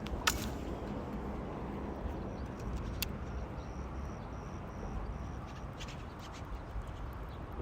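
Steady low outdoor rumble with two sharp clicks, one just after the start and one about three seconds in. In the middle a faint high chirp repeats evenly for a couple of seconds.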